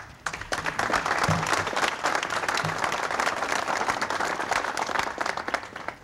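A crowd applauding, many hands clapping. It starts just after the start and dies away near the end.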